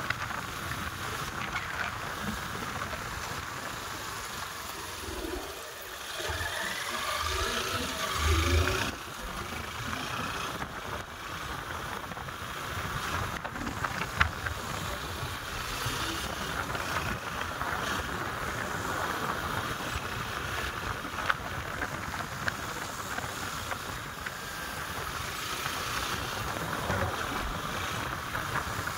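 Wind rushing over the microphone of a moving motorcycle, with steady engine and road noise underneath and a brief louder rumble about eight seconds in.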